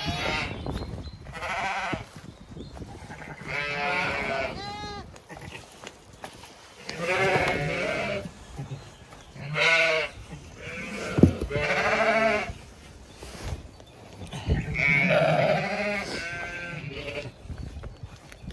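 Zwartbles ewes and their newborn lambs bleating back and forth: repeated wavering calls every second or two, calls between ewes and lambs as they pair up. A single sharp knock sounds about eleven seconds in.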